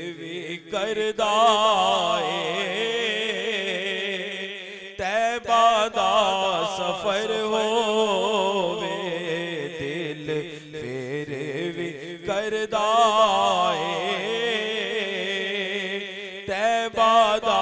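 Male voice singing a Punjabi naat in long, ornamented phrases with wavering pitch, over a steady low drone. The voice breaks off briefly about five seconds in and again near twelve seconds.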